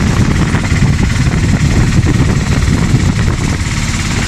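Auto-rickshaw engine running steadily with a rapid pulsing as the three-wheeler drives along the road, heard loud from inside its open cabin along with road noise.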